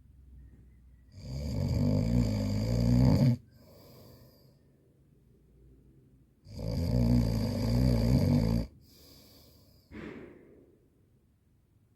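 A woman snoring loudly in her sleep: two long, fluttering snores about five seconds apart, each followed by a softer breath out.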